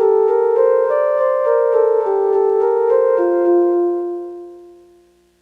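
Keyboard music, piano-like, playing a slow line of sustained notes and chords. A final chord is held from about three seconds in and fades out to silence.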